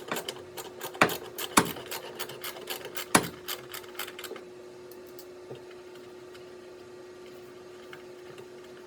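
Ratchet with a 10 mm socket clicking in quick runs as a nut or bolt is turned, with a few sharper metal knocks, stopping about four seconds in. A faint steady hum remains after it.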